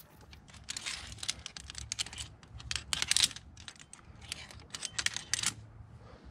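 Irregular clicks and crunches, about three a second and loudest near the middle: a climber's boots on loose rock and gravel mixed with via ferrata gear knocking on rock and cable.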